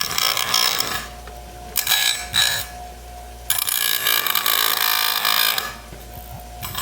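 Single-speed benchtop grinder wheel grinding metal in three bursts of harsh hiss, the longest about two seconds around the middle, with the grinder running quietly between them.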